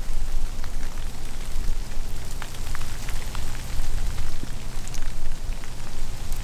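Falling snow ticking on leaves and branches, many small scattered ticks over a steady haze, with a steady low rumble underneath.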